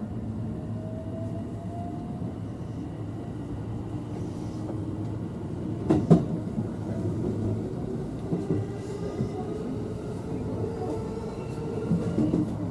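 A train running past with a steady low rumble and a faint rising whine, a sharp clack about six seconds in and a few lighter knocks near the end.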